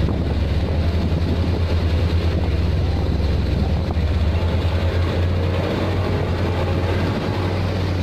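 Hino concrete mixer truck's diesel engine running as the truck drives off, a steady low rumble.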